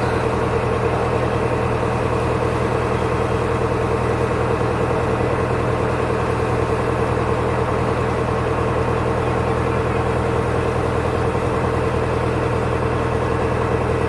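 Boat engine running steadily, a constant drone with no change in speed.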